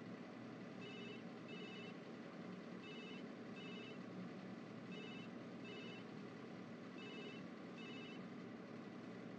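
Faint telephone ringing in short double rings, four pairs about two seconds apart, over a low steady hum.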